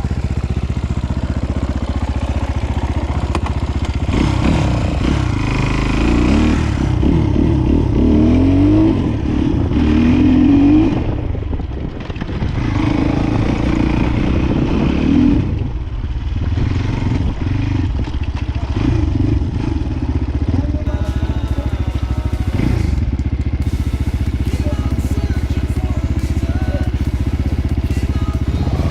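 Motorcycle engine running, revving up and down several times in the first half, then running more steadily.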